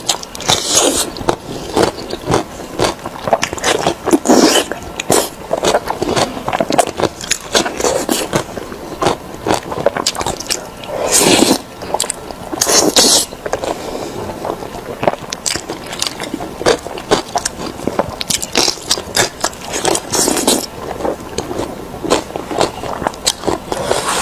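Close-miked eating: wet chewing, biting and smacking on braised meat, in irregular bursts with a louder spell of gnawing about halfway through.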